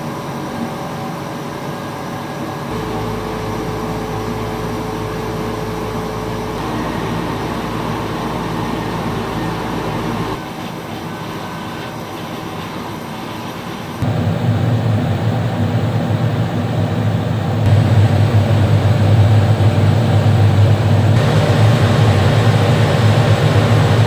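Steady running noise of a Paseco window air conditioner on fan speed 2, dropping slightly about ten seconds in as it switches to its quieter sleep mode. After a cut, an LG portable air conditioner runs with a much stronger low hum, stepping up louder again a few seconds later in turbo mode.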